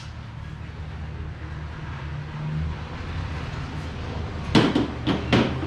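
A low steady hum, then about four sharp metal clicks and knocks in quick succession about four and a half seconds in, as a hex key and a metal shock-canister bracket are handled.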